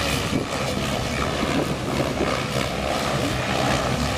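Several Gaui radio-controlled helicopters flying aerobatics low over the field: a steady whir of spinning rotor blades and motors.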